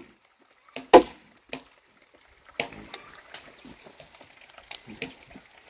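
Wood being struck and split: a few sharp wooden knocks in the first second and a half, then lighter scattered cracking and clicking.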